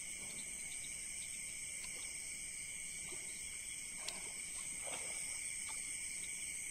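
Chorus of night insects, crickets among them, keeping up a steady, high-pitched trill at two pitches. A faint click comes about four seconds in.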